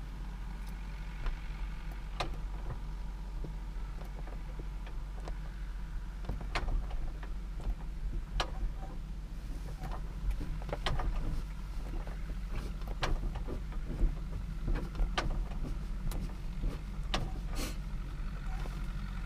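Irregular sharp clicks and knocks over a steady low rumble while the propeller of the Jodel DR1050 is turned by hand with the magnetos off, ahead of a hand-prop start.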